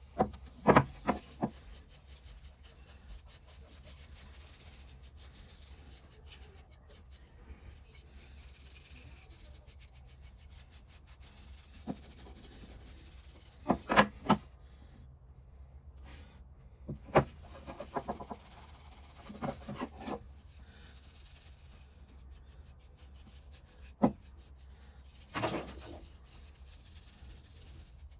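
Scattered short scrapes and knocks of hand work on the tool being restored, each lasting well under a second, with a quiet, steady background between them.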